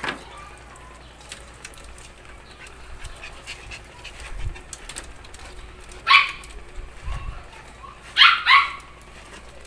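Small dog barking: one sharp bark about six seconds in, then two quick barks close together about two seconds later.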